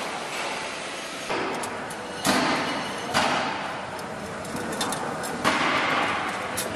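Steady workshop noise with a few light metallic clinks as steel spokes are handled and threaded into a chrome motorcycle wheel rim. The noise level jumps abruptly several times.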